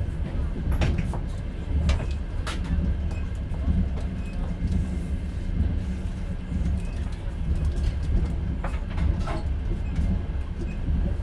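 Moving passenger train heard from inside a platskart sleeper carriage: a steady low rumble of wheels on rail, with scattered light clicks and knocks from the carriage.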